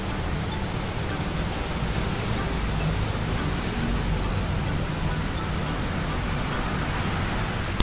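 Steady rushing of a shallow stream flowing between concrete and stone walls.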